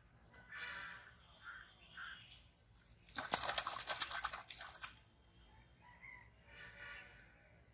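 A hooked catfish thrashing and splashing at the water's surface on a pole line, a rapid flurry of splashes lasting nearly two seconds about halfway through. Birds call before and after it.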